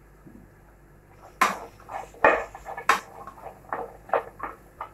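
Wooden spatula knocking and scraping against a frying pan as vegetables are stirred: a quick run of sharp clacks that starts about a second and a half in.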